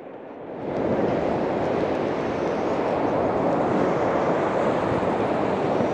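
Steady rushing noise of breaking surf and wind on an open sea beach, starting about half a second in.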